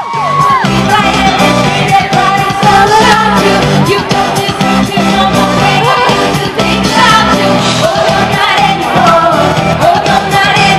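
A live pop song: a female lead singer over a full band played loud through a concert PA, with the audience singing and shouting along close to the microphone.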